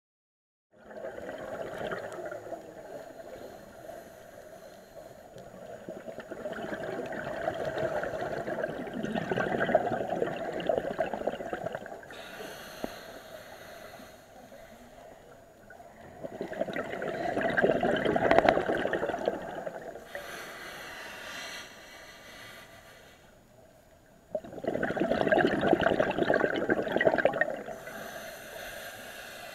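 A scuba diver breathing through a regulator underwater: exhaled bubbles gurgle in a loud burst about every eight seconds, with a quieter hiss between the bursts. The sound starts suddenly just under a second in, as the picture changes from the title card to the dive.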